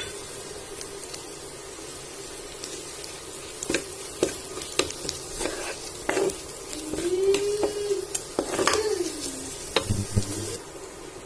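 Sliced onions, crushed garlic, ginger and green chillies sizzling steadily in hot oil in a pan while being stirred, with repeated knocks of the stirring utensil against the pan and a brief scraping squeal about two-thirds of the way through.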